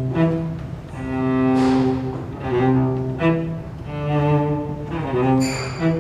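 Viola d'amore bowed in slow, sustained notes, often two sounding together, moving to a new pitch about every second. A short, bright high tone rings out briefly near the end.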